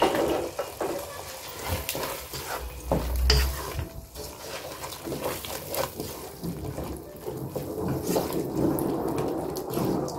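Wooden spatula stirring a thick tomato and vegetable masala in a nonstick pot: wet stirring sounds with many small clicks of the spatula against the pan, and a low bump about three seconds in.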